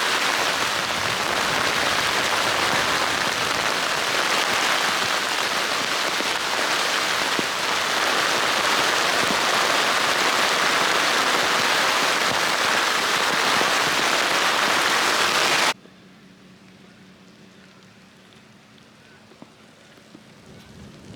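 Heavy rain pouring down in a dense, steady hiss. It cuts off abruptly near the end, leaving a quiet background with a faint low hum and a few small clicks.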